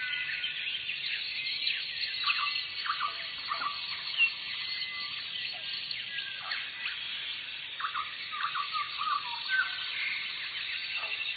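A dense chorus of many birds chirping and calling at once, with short overlapping notes and quick sweeps throughout.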